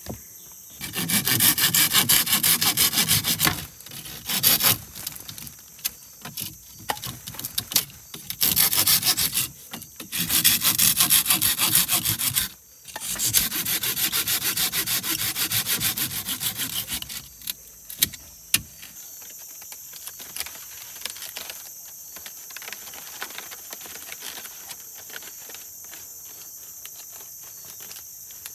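Hand saw cutting through wood in several long bouts of quick back-and-forth strokes, with short pauses between them; the sawing stops about two-thirds of the way through. After that only a steady high insect drone remains.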